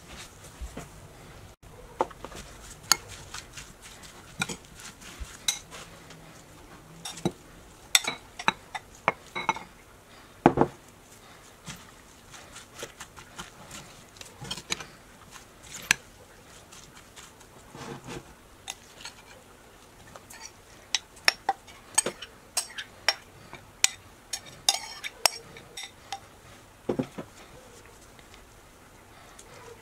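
Metal spoon stirring and scooping chopped salsa in a ceramic bowl, with irregular clinks of the spoon against the bowl.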